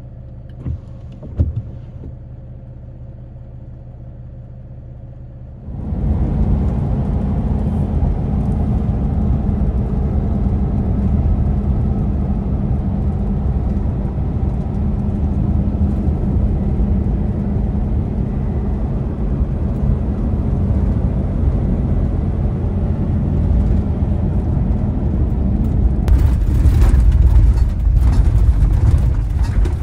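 A road vehicle running: a steady low hum with a few clicks, then about six seconds in a sudden rise to a loud, even road rumble that carries on.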